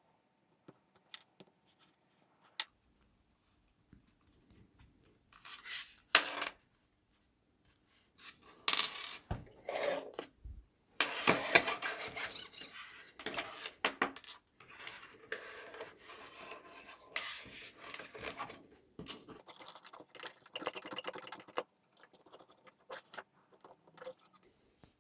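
Small hardware being handled during assembly: irregular clicks, light metallic clinks and rubbing or scraping in bursts, busiest around the middle.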